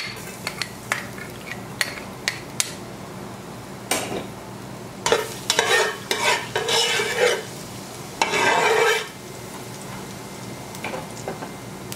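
Minced garlic going into hot oil in a nonstick pot with a few light taps of the spoon, then a spatula scraping and stirring it around the pot bottom in several strokes from about four to nine seconds in, over a light sizzle of the oil.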